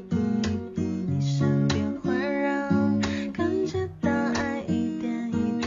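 Background music: a pop song with an acoustic guitar strummed in a steady rhythm.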